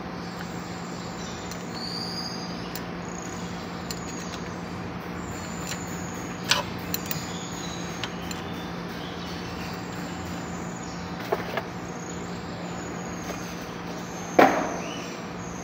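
Steady low background hum with birds chirping high above it, and a few sharp knocks, the loudest near the end.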